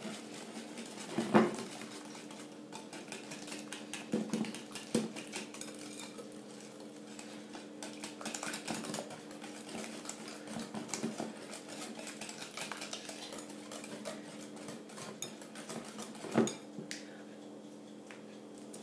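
Wire whisk beating a runny mix of eggs, sugar and cream in a glass bowl: the wires click rapidly against the glass, with a few louder knocks, and the whisking stops shortly before the end.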